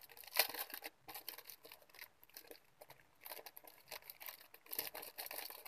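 Plastic packaging crinkling and rustling as a small pouch is opened and handled, with many short irregular crackles.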